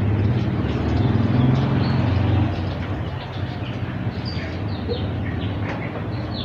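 A motor vehicle engine running steadily, louder for the first two and a half seconds and then easing off. Birds chirp several times in the second half.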